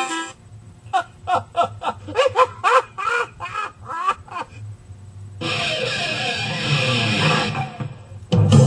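Edited-in music and sound effects: a run of about a dozen short pitched notes bending up and down, then a denser, hissier stretch of music from about five seconds in.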